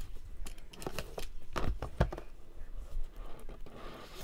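Small cardboard trading-card box handled and opened by hand: a series of light knocks and scrapes, then a soft rustle of cardboard near the end.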